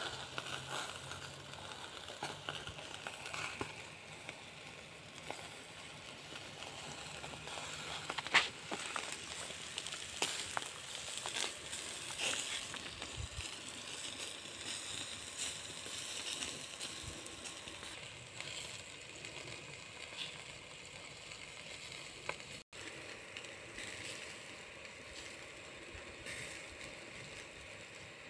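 Meat in wire grill baskets sizzling over a charcoal grill, with scattered crackles and pops from the hot coals.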